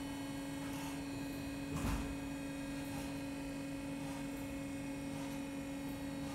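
Steady electrical hum, with a single low thump about two seconds in.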